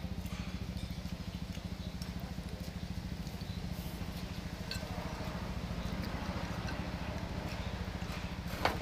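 An engine running: a steady, fast low throb that starts abruptly.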